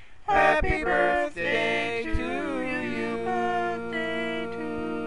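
The closing bars of a birthday song: a sung melody with instruments, settling about halfway through into long held notes.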